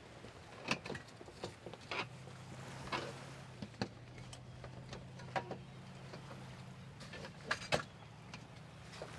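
Metal bars of a folding camping cot knocking and clicking as they are worked into the cot's fabric sleeves and frame: a string of scattered short knocks and scrapes.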